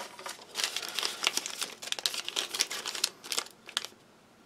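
Small ration sachets and packets crinkling and rustling as hands pick them up and sort them, a quick run of crackles that stops about four seconds in.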